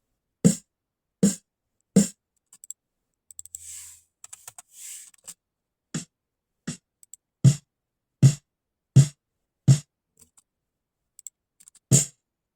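Single snare drum struck in slow, even test hits about three-quarters of a second apart, with the snare wires sizzling on each crack. The top head is being tuned higher between strikes. After three hits there is a pause with faint clicks and a short hiss, then softer hits grow into a run of five loud strikes, with one more near the end.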